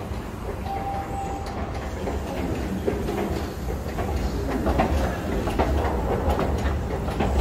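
MBTA Blue Line subway train rumbling and clattering on the tracks in the station, growing louder about halfway through.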